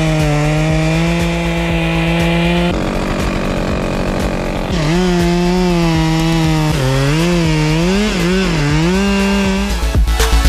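Two-stroke chainsaw running at high revs with a steady high note, breaking into a couple of seconds of rough noise, then revving up and down in quick wobbles near the end. Music with a beat comes in at the very end.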